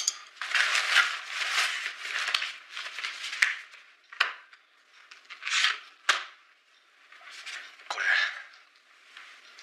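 Rustling and crinkling of objects being handled, in irregular bursts, with two sharp clicks about four and six seconds in.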